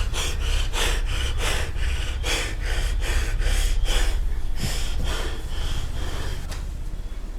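A person breathing hard and fast in short, rhythmic breaths, about two to three a second, over a low steady rumble, fading near the end.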